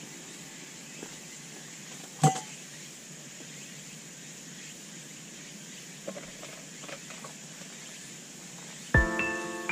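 Quiet outdoor ambience with a steady high-pitched hiss, broken by one sharp knock about two seconds in and a few faint clicks later. Piano-like music starts near the end.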